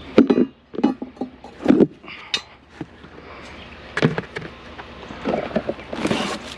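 Salvaged junk being handled and set down: a series of knocks and clatters, three in the first two seconds and one more about four seconds in, then a longer rattle near the end.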